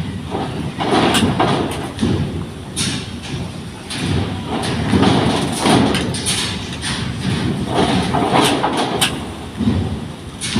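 Cars driving off a ferry's vehicle ramp: engines running and tyres rolling in uneven swells, with repeated thumps as wheels cross the ramp.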